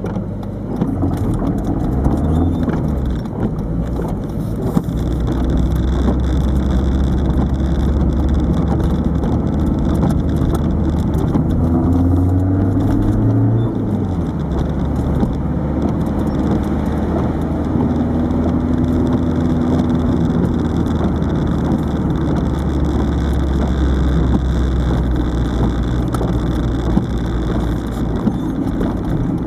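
Peugeot 306 turbo diesel engine and road noise inside the moving car. The engine note climbs about halfway through, drops away, then holds steady, with the dash-mounted camera rattling throughout.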